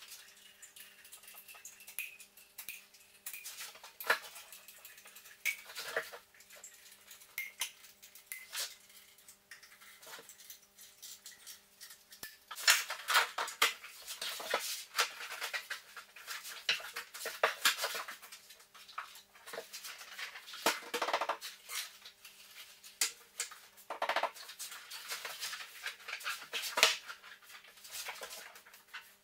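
Quick irregular knocks, taps and clatter of hands and tools working timber skirting board against a wall. They are sparse at first and get denser and louder from about halfway through, over a faint steady hum.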